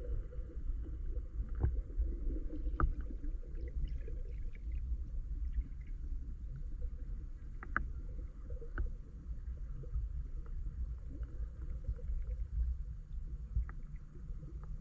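Muffled sea sound heard through a camera under the water: a steady low rumble of moving water with scattered sharp clicks and ticks.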